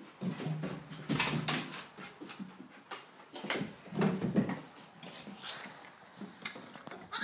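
Cat and dog scuffling on a hardwood floor: irregular thumps, knocks and scrabbling against wooden chair legs, loudest about a second in and again about four seconds in.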